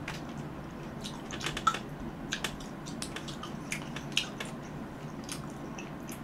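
Close-miked mouth sounds of chewing fresh cherries: scattered wet clicks and squishes, the loudest about a second and a half in and about four seconds in, over a low steady hum.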